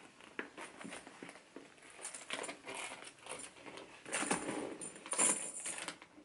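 Rebecca Minkoff Love crossbody bag in quilted leather being handled and set down on a shelf: the leather rustles and the metal chain strap clinks, in scattered light clicks. The loudest are about four and five seconds in.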